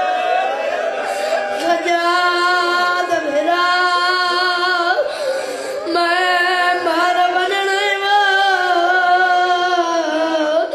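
A noha, a Shia lament, sung by a high voice in long phrases of held, wavering notes, with short breaks between phrases about two and six seconds in.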